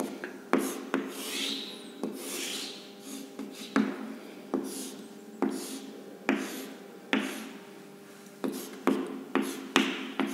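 Chalk writing on a chalkboard: scratching strokes as lines and boxes are drawn, with sharp taps of the chalk against the board, coming quicker near the end as arrows are marked into the boxes.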